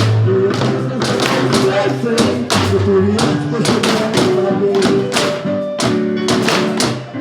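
A percussion ensemble playing instruments made from recycled cans, a steady beat of struck cans under a pitched melody.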